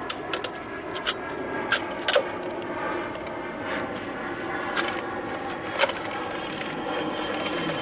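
Scattered sharp clicks and light scrapes of parts being handled and pushed into place, about half a dozen over several seconds, over a steady background hum.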